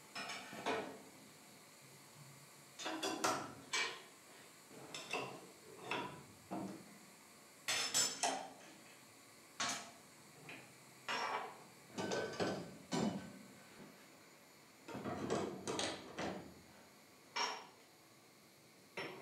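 Irregular metal clanks and clicks as the circular blade of a stopped sliding table saw is changed, the steel blade and fittings knocking against the saw's arbor and housing. The saw motor is not running.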